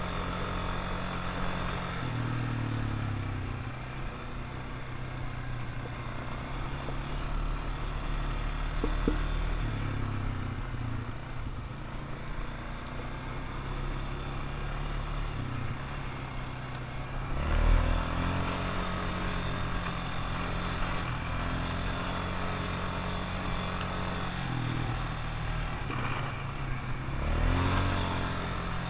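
ATV engine running under changing throttle, its pitch rising and falling again and again, with a sharp rev about two-thirds of the way through.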